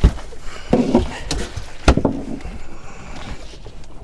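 Knocks and thuds of a landing net and a bull huss being hauled aboard a small fishing boat: a sharp knock right at the start, then several more over the next two seconds.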